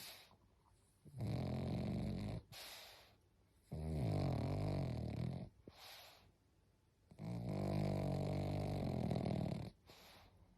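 Sleeping dog snoring: three long loud snores, each lasting one to two and a half seconds, with softer breaths between them, about every three seconds.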